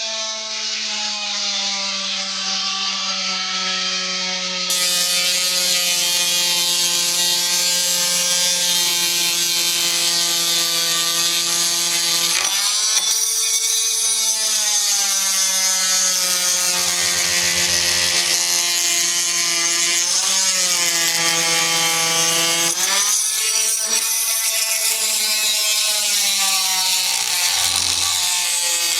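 Hammerhead 2.2-amp corded oscillating multi-tool running with a steady high hum. Its pitch sags briefly several times as the blade is pressed into the material and bogs under load.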